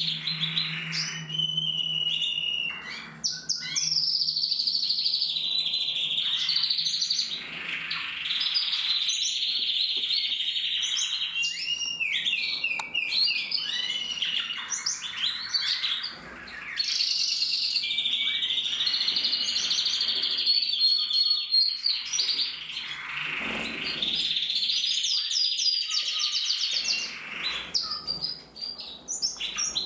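Crested canary singing: long, continuous phrases of rapid trills and rolls, broken by a few short pauses.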